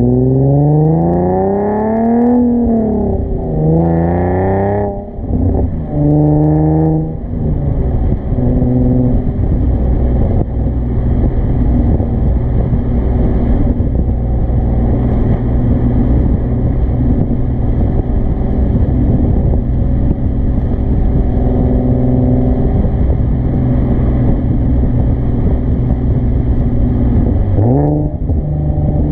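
Exhaust note of a 2013 Nissan 370Z's 3.7-litre V6 through a Motordyne cat-back exhaust, heard close to the tailpipe. The car pulls hard through three upshifts, the pitch climbing and falling back at each shift, then settles into a steady cruising drone over road noise. Near the end the revs dip and climb again quickly.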